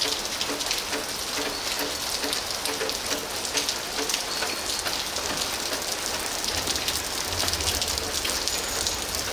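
Steady rain falling on wet concrete, an even hiss dotted with many individual drop ticks.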